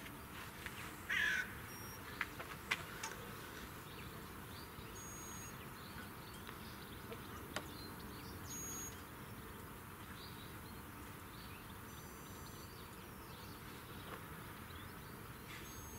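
Outdoor background noise with a crow cawing once about a second in, followed by a few short sharp clicks.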